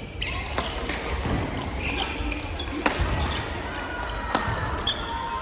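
Sharp racket hits of a doubles rally in an indoor hall, a few single strikes spaced irregularly over background murmur.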